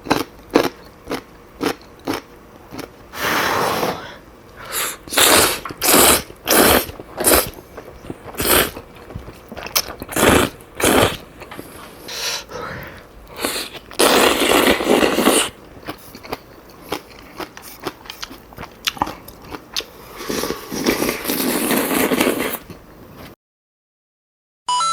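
Close-miked eating sounds of Chapagetti black bean noodles and kimchi: many short, crisp crunching bites and chewing, with a few longer slurps of noodles. They stop abruptly near the end.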